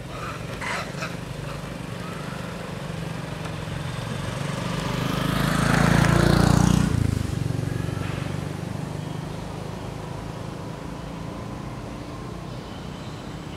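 A motor vehicle passes by on the road, its engine and tyre noise swelling to loudest about six seconds in, then falling away; a low engine hum runs underneath.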